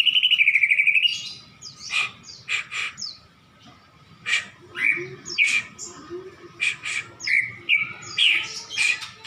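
Caged pet bird ending a long, rapid trill about a second in, then giving a string of short, separate chirps and calls.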